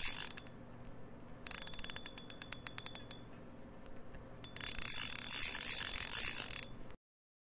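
Fishing reel's clicking drag: a fast ratcheting buzz, then a slower run of separate clicks from about a second and a half in, then another long fast buzz from about four and a half seconds that stops near the end.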